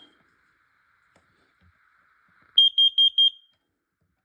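Carbon monoxide alarm sounding on its test button: a quick burst of four high-pitched beeps about two and a half seconds in. This is the code-4 (temporal-4) pattern that signals carbon monoxide.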